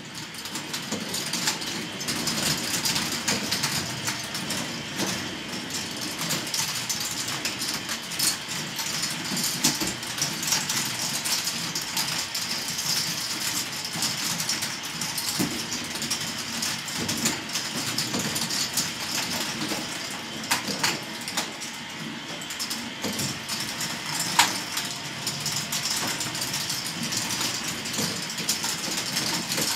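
A large K'nex ball machine running: a steady clatter of its motor-driven lifts with plastic balls rolling and clicking along the plastic tracks, and many scattered sharp clicks and knocks. It fades in at the start, and one louder click stands out about three-quarters of the way through.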